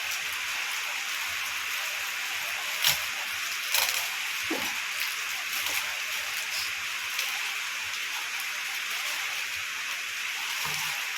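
A steady hiss, broken by two short sharp crackles about three and four seconds in.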